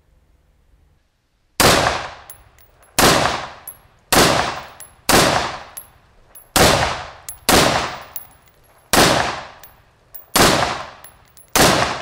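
Schmeisser AR-15 rifle firing nine semi-automatic shots at an unhurried pace, about one every second to second and a half, each shot followed by a fading echo. Light metallic clinks sound between the shots.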